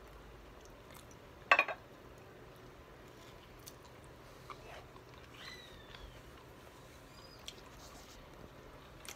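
Quiet chewing of burger mouthfuls in a small room, with one brief loud sound about a second and a half in and a faint high falling squeak around the middle.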